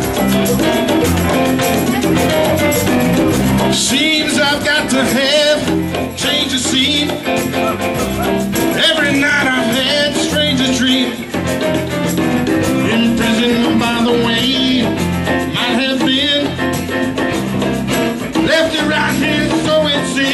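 Live band playing a mid-tempo rock song with electric guitar, drum kit and congas, with a man singing lead.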